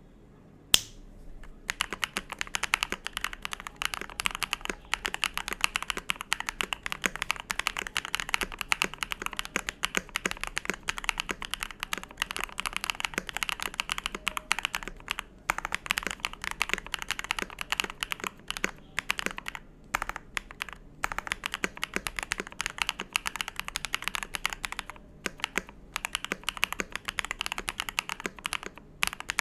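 Steady fast typing on a KBD67 Lite mechanical keyboard with Akko Cream Black linear switches and Akko gradient grey keycaps, a dense run of key clacks with a few short pauses. A single sharp click comes just before the typing starts.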